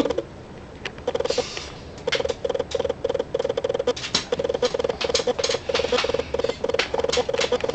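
Kitten rubbing its fur against the camera microphone: close, irregular scratchy crackling, with a repeated short buzzing pulse that comes and goes throughout.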